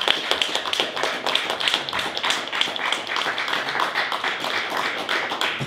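Dense, irregular clicking and tapping, many sharp clicks a second over a steady hiss.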